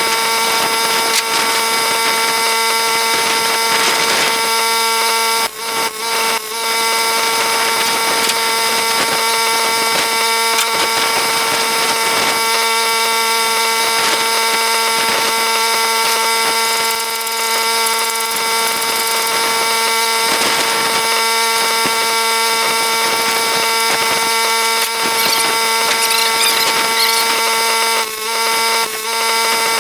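A handheld power tool running steadily on steel, a fixed high whine over a gritty hiss, easing off briefly about five and a half seconds in, again a second later, and twice near the end.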